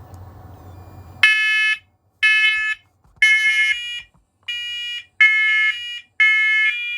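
Several interconnected First Alert smoke and carbon monoxide alarms sounding together on test: loud, high-pitched beeps of about half a second, roughly one a second, starting a little over a second in. The units are slightly out of step, so their tones overlap.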